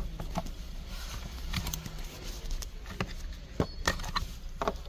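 Scattered light clicks and knocks of a plastic Midland BeeperOne GPS dog-collar beeper being handled and pulled off its charging cradle, over a low steady hum.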